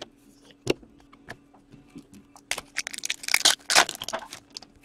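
A foil trading-card pack from an Upper Deck SPX hockey box being torn open and crinkled by hand, the crinkling dense and loudest past the middle. It is preceded by a sharp click and a few light ticks of cards being handled.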